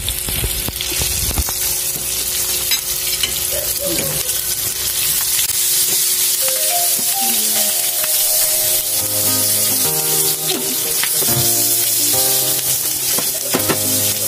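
White grubs (beetle larvae) sizzling steadily in hot oil in a nonstick frying pan as they are fried until crisp, with a metal spatula scraping and turning them now and then.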